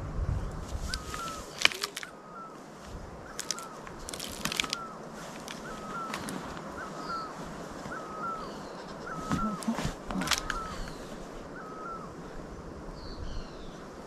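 A bird repeating one short, hooked call about once a second, with fainter chirps from other birds, in a quiet forest. A few sharp clicks sound near 2 s, 4 s and 10 s.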